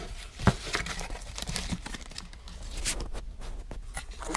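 Plastic parts bags and a cardboard box crinkling and rustling as parts are handled by hand, with a sharp knock about half a second in.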